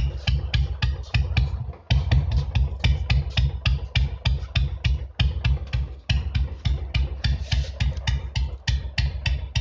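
Royal Enfield Bullet single-cylinder engine running at low rpm through a short bottle-type 'Punjabi' silencer, giving a steady, deep thump of about six beats a second that briefly dips twice.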